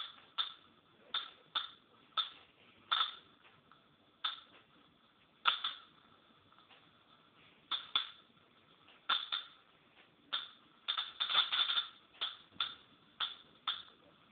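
High-voltage spark discharges at 25 kV snapping at irregular intervals, roughly one every half second to a second. About eleven seconds in there is a short run of rapid crackling.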